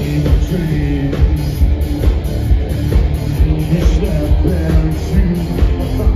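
Loud live electro-industrial band: a heavy steady beat with guitar and a singer's vocals over it, heard from the crowd in front of the stage.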